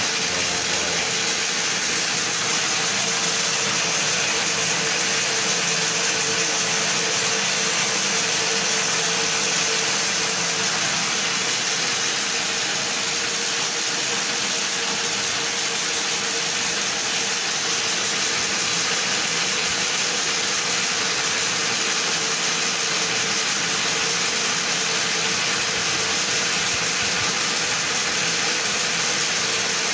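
Motor-driven multi-spindle yarn winding machine running steadily, winding knitting yarn into balls: a constant whirring hum with an even hiss.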